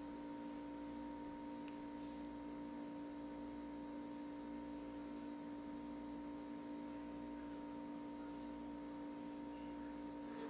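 Steady electrical hum with a constant background hiss.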